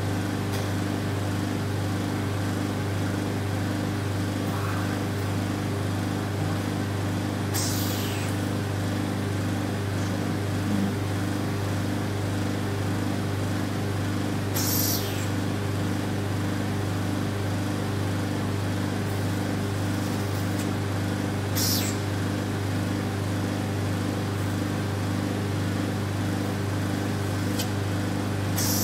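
Vacuum RF roller body-contouring machine running with a steady low hum. A short hiss of air comes about every seven seconds as the handpiece's suction cycles.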